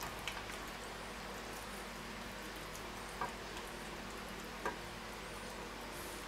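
Quiet room hiss with a few soft clicks and faint wet handling noises as metal tongs turn raw meat fillets in marinade in a stainless steel pan.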